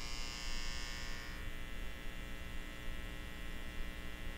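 Neon sign buzzing with a steady electrical hum, a dense stack of unchanging tones under a hiss. The highest part of the hiss drops away about a second and a half in.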